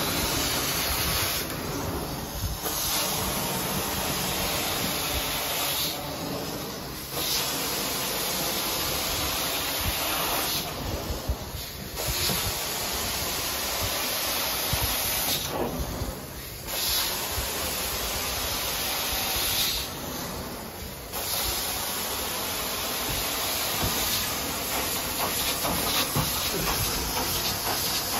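Carpet-cleaning extraction wand spraying and sucking water through the carpet, a steady loud hiss. The hiss drops off briefly about every four to five seconds between strokes of the wand.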